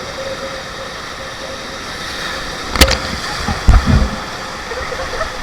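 Steady rush of the river's rapids around a raft. A sharp knock comes a little before the middle, followed by a few low thumps.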